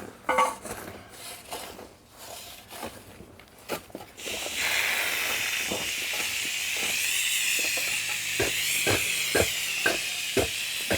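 Garden hose spraying water, a steady hiss that starts about four seconds in, after a few faint scrapes; several light knocks sound over it near the end.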